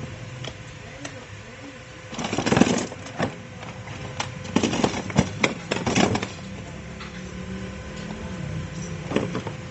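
Hands fitting a plastic battery hold-down bar into the battery compartment of a kids' ride-on car: a brief rustle about two seconds in, then a run of irregular clicks and knocks as it is pressed into place, and one more click near the end.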